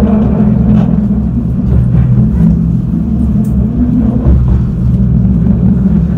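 Alstom Citadis 402 tram running, heard from inside the car: a steady low rumble with a hum from the running gear.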